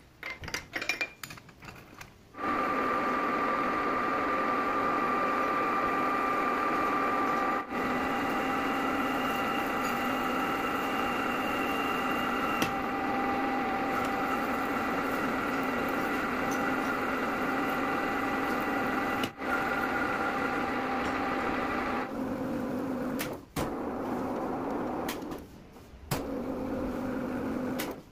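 Clinks of a metal tube being set and tightened in a lathe's three-jaw chuck. About two seconds in, the metal lathe starts running with a steady whine as its cutting tool turns down the end of the tube. The sound breaks off briefly a few times.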